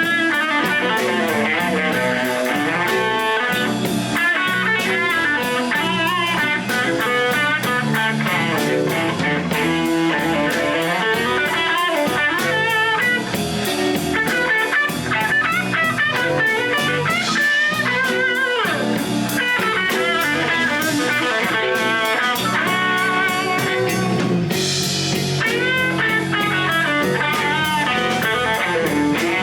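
Live blues band playing, an electric guitar taking the lead with bent, wavering notes over a drum kit.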